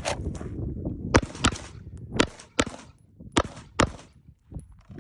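Six pistol shots fired in three quick pairs about a second apart: a double tap on each of three targets after drawing on the shot timer's beep.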